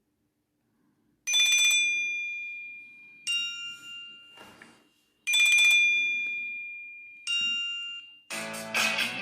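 Nokia Asha 300 ringtone: a bell-like chime, starting after about a second of silence. It plays a high ringing note that fades over about two seconds, then a shorter lower note, and the pair repeats. Near the end a different, busier ringtone melody begins.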